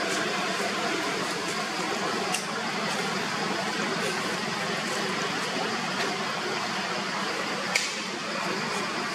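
Steady outdoor background hiss with a few faint ticks, and one short sharp click near the end.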